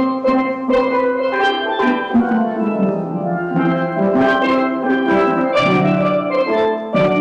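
Steel drum band playing a tune: quick struck notes on the pans over lower, longer bass notes.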